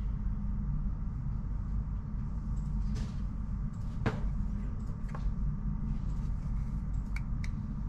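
Steady low rumble with a few light clicks and knocks on top, the loudest about four seconds in.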